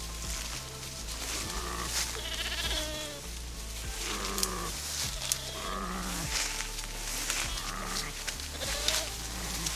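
Sheep and goats bleating, calls repeating every second or two, one with a wavering tremble.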